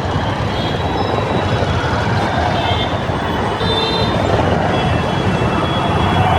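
Steady road traffic noise: a continuous rumble of engines and tyres, with faint high horn-like tones now and then.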